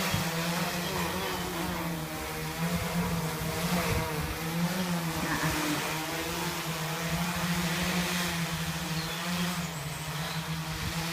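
Large homemade quadcopter's electric motors and propellers running with a steady buzzing hum, its pitch wavering slightly as the throttle shifts, over a wash of propeller wind noise.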